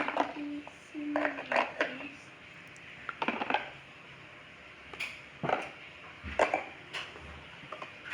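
Small toy dishes and utensils clinking and clattering in a toy washing-up sink, in several short bursts a second or two apart.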